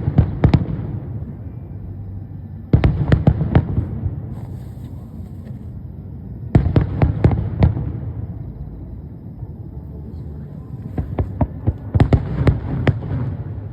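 Aerial firework shells bursting in volleys of rapid, sharp bangs, a cluster about every three to four seconds, each volley trailing off into a low rumbling echo.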